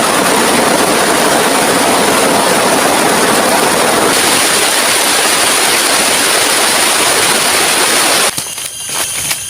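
Heavy rain pouring down in a dense, steady hiss. About eight seconds in it cuts off abruptly to a quieter sound with scattered light taps.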